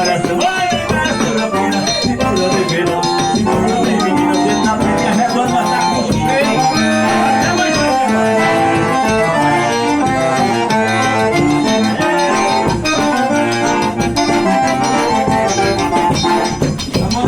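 Accordion playing a lively melody over band accompaniment with a steady beat.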